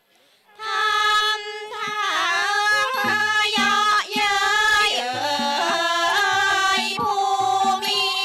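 Thai traditional ensemble music accompanying a lakhon phanthang dance-drama, starting after a brief pause of about half a second, with a melody line that slides and wavers in pitch. A low repeating beat joins about three seconds in.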